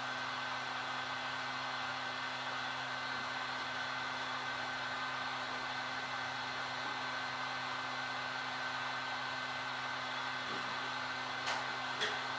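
Temperature-controlled heat gun running steadily: a blower hiss with a constant motor hum and a thin whine, heating the phone's glass to soften the screen adhesive. Two light clicks near the end.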